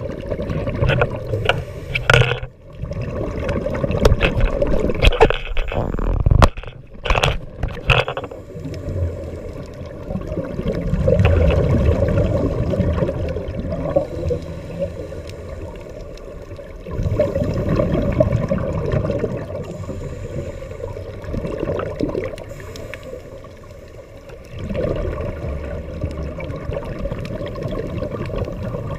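A scuba diver breathing through a regulator, heard underwater. The exhaled bubbles come in rumbling gurgling swells about every six to seven seconds, and there is crackling and clicking in the first several seconds.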